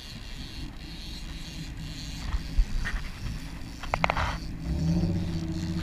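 A boat's engine running under wind and water noise, its hum growing louder near the end, with a few sharp clicks just before.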